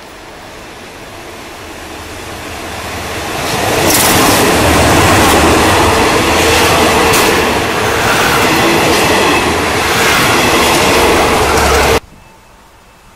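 A State Railway of Thailand passenger express, hauled by a CM22-7 diesel locomotive, runs through the station without stopping. The rumble builds for about four seconds as the train approaches. Then the coaches roll past close by with the clack of wheels over the rail joints, until the sound cuts off suddenly about twelve seconds in.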